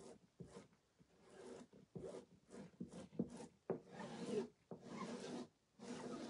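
Small plastic squeegee rubbing and scraping chalk paste across a silkscreen transfer laid on a burlap board, in a quick run of short, irregular strokes.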